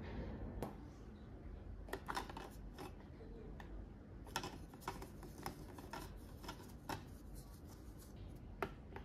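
Hard plastic toy kitchen pieces, toy food and a cup, being handled and set down in a plastic toy sink: a string of light, irregular clicks and knocks, some in quick pairs.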